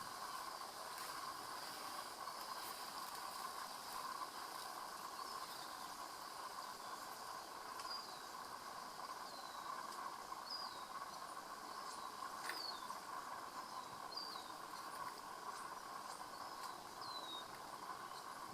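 Faint steady outdoor background of insects chirring, with a low steady hum beneath. From about eight seconds in, a bird gives short, high, falling chirps every second or two.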